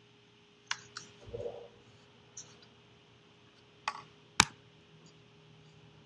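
A paintbrush rinsed in a water cup: a few sharp clicks and taps of the brush against the cup, with a duller knock about a second and a half in and the loudest click about four and a half seconds in. A faint steady hum runs underneath.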